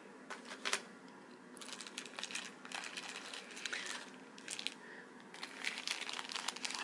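Thin plastic bag crinkling as it is picked up and handled, after a couple of light taps about half a second in.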